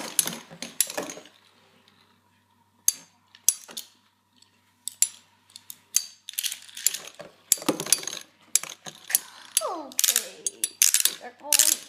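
Two Beyblade spinning tops battling in a plastic stadium: a run of irregular sharp clicks and clatters as they strike each other and the walls, with a short lull about two seconds in.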